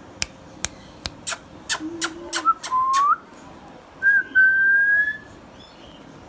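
Indian ringneck parrot giving a quick run of about eight sharp clicks, then a short rising whistle and a longer whistle that climbs slightly in pitch.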